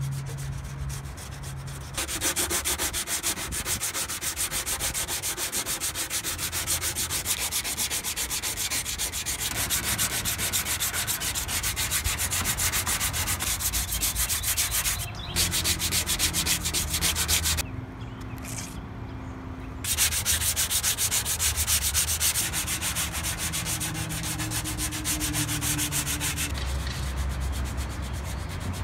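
Hand sanding of cured body filler on a car's steel body panels with a sanding sponge and sandpaper, in rapid back-and-forth strokes. The sanding stops briefly twice around the middle.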